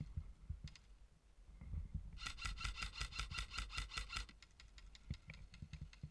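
Airsoft rifle firing a rapid full-auto burst of about two seconds, starting about two seconds in, the shots coming as a fast buzzing rattle; fainter rapid shots follow.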